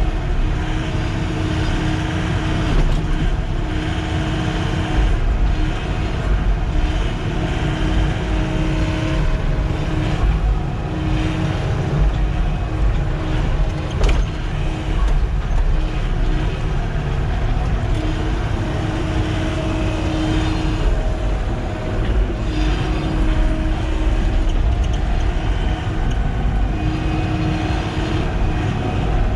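Sany SY-95 excavator's diesel engine running steadily under working load, with a steady tone that swells in and drops out every few seconds as the machine works. A single sharp click about halfway through.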